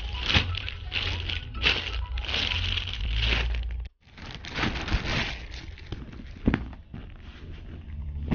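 Clear plastic polybag crinkling and rustling as a handbag is handled and unwrapped from it, with a low rumble under the first half. The sound breaks off abruptly about four seconds in, then resumes more softly with a single sharp knock a little later.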